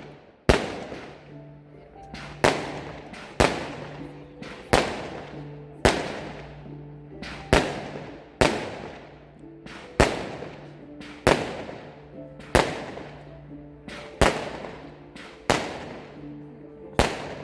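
Firework battery firing shot after shot, thirteen sharp bangs at uneven gaps of about one to two seconds, each trailing off over about a second, with background music underneath.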